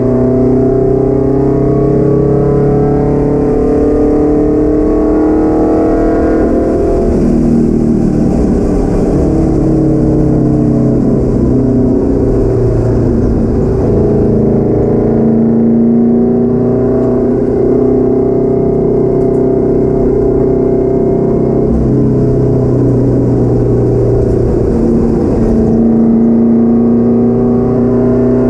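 Car engine heard from inside the cabin at track speed: a loud, steady drone whose pitch climbs slowly on a long pull, drops away about six seconds in, then builds again and holds.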